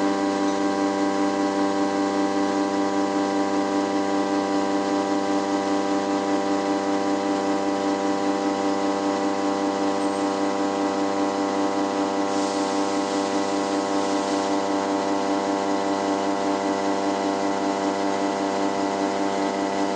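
A steady, unchanging hum made of many held tones. A short hiss joins it about twelve seconds in and stops about two seconds later.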